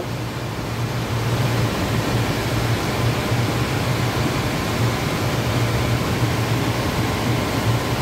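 Computer-room air conditioner running: a steady rush of fan air over an even low hum.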